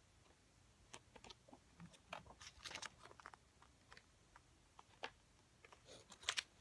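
Glossy photobook pages being turned by hand: faint, scattered paper rustles and flicks, with the loudest page flick near the end.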